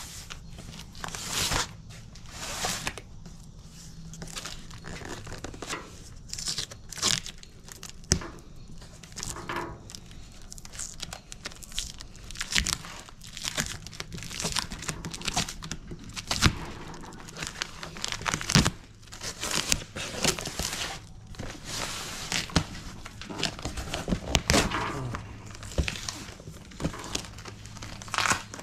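A cardboard box being handled and opened: tape tearing and cardboard flaps crinkling and rustling, with irregular sharp clicks and knocks as the box is turned over.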